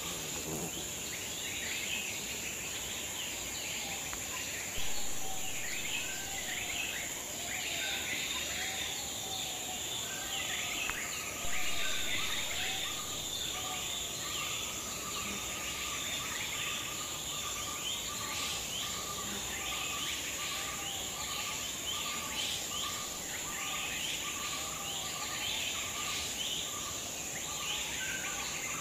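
Forest ambience: a steady high-pitched insect drone under many birds chirping and calling. From about a third of the way in, a short note repeats about once a second.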